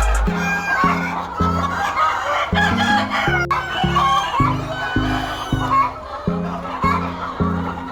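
Chickens clucking and calling over background music with a steady, evenly pulsing bass line.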